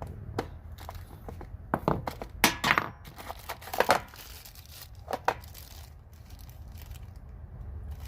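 Helicoil thread-repair kit and its pieces being handled: a string of short rustles and clicks, loudest about two and a half seconds in and again near four seconds.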